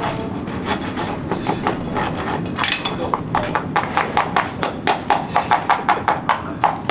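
Shod hooves of a racehorse clip-clopping on hard ground in a steady walking rhythm of about three to four strikes a second, the steel shoes just fitted. The strikes are scattered at first and fall into a regular rhythm about halfway in.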